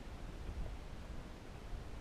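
Quiet, steady background noise: a faint hiss with a low rumble and no distinct event.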